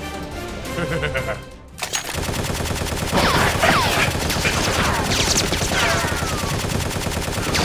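Background music stops about two seconds in, then dubbed-in automatic gunfire sound effects with rapid shots and several falling ricochet whines as rounds strike brickwork.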